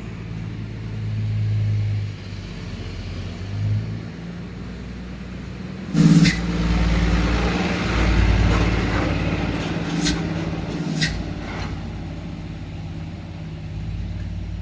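Truck engine running, with a loud sudden noise about six seconds in and two sharp knocks near ten and eleven seconds.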